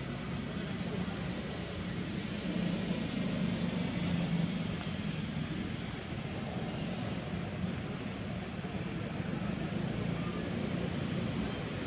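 Steady outdoor background noise with a low, even hum like vehicle traffic, and no distinct events.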